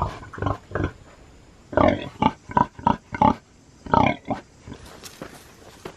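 Domestic pig grunting in short, repeated grunts: a few at first, a quick run of about seven between two and three seconds in, and a couple more around four seconds.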